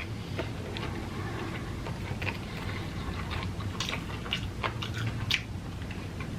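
Close-up chewing of food: scattered wet mouth clicks and small crunches, over a steady low hum.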